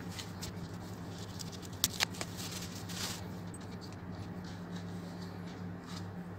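Rustling and handling of packaging as a small wooden speaker is pulled out of its white protective wrapping, with two sharp clicks about two seconds in. A steady low hum runs underneath.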